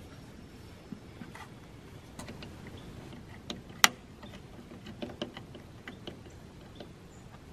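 Scattered clicks and knocks of hardware being handled: the Wavlink AX3000 outdoor access point and its metal clamp tapping and clicking against a metal antenna pole as the unit is fitted. The sharpest click comes just before four seconds in.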